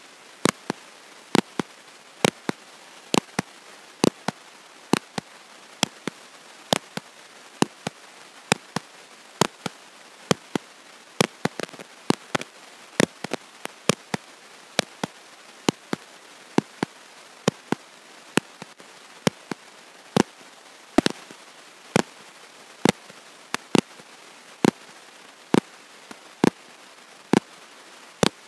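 Sharp clicks, about two a second, over a steady hiss, with no speech heard.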